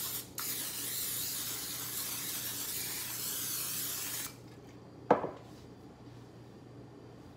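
Aerosol cooking spray hissing from the can into a glass baking dish: a short burst, then one long steady spray of about four seconds that cuts off. About a second later comes a single sharp knock.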